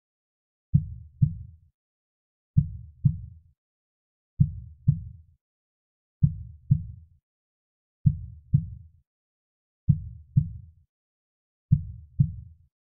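Slow, soft heartbeat sound: paired low lub-dub thumps, the two beats of each pair about half a second apart, repeating evenly about every two seconds, seven times in all.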